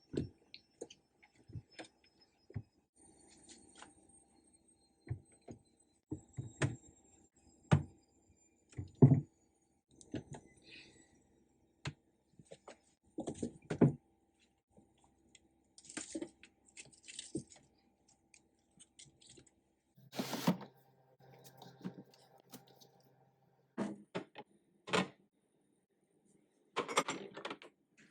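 Irregular knocks, clicks and clatters of items being handled and set down, with short rustling between them; the loudest knocks come about nine seconds in and again near the end.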